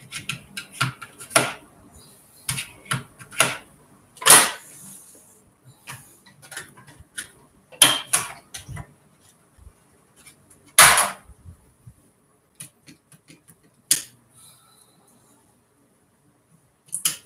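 Irregular clicks, knocks and clatter of a Singer sewing machine being tilted and worked on by hand, metal parts rattling and bumping on the table, with a few louder knocks about 4, 8 and 11 seconds in.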